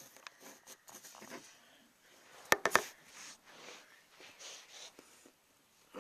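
Faint rustling and shuffling handling noises, with a quick cluster of three sharp knocks about two and a half seconds in.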